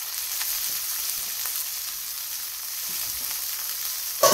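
Rib steak searing in a hot cast-iron skillet, the fat sizzling steadily. A single sharp knock near the end.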